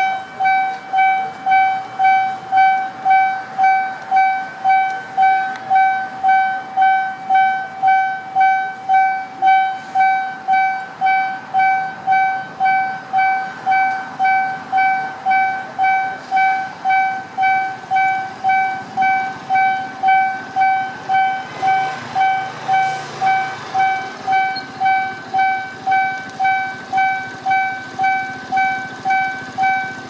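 Railway level crossing warning alarm sounding: an electronic tone pulsing in an even rhythm, nearly two beeps a second, over faint road traffic.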